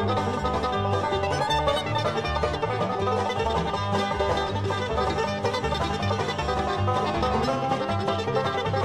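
Background music with plucked strings and a steady bass beat.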